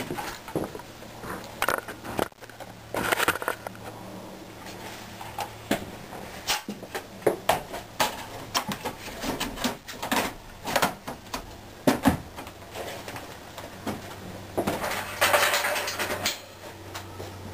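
Handling of the fan's window mount and its cardboard box: scattered knocks and clatter, with two longer stretches of rustling, about three seconds in and near the end.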